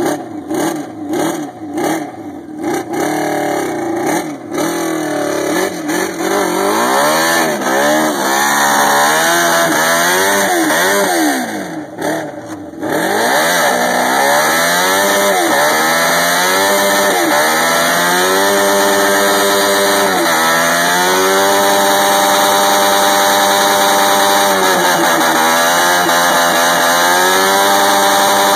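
Motorcycle engine doing a burnout: revved in rising and falling blips for the first several seconds, then held at high revs from about halfway in, the pitch stepping up and down now and then.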